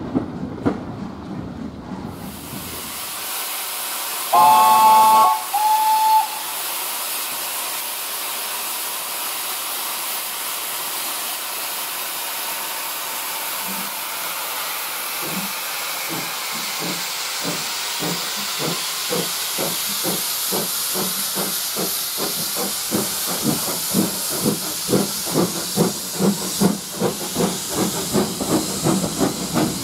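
Steam locomotive hissing steam, then sounding its whistle: a loud blast followed by a shorter one. It then starts away, its exhaust beats slow at first and steadily quickening.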